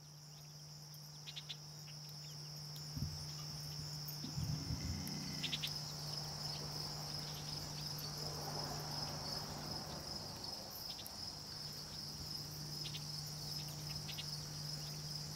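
A steady, high-pitched chorus of crickets fades in over the first couple of seconds. A steady low hum runs beneath it, and a few faint ticks are scattered through.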